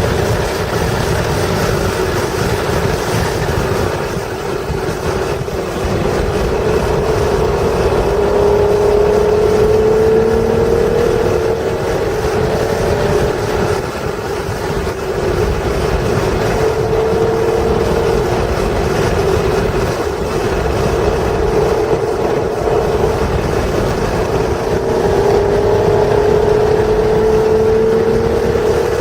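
1996 Acura NSX's stock 3.0-litre V6 pulling hard at track speed. Its pitch climbs through the revs several times, with brief lifts off the throttle in between.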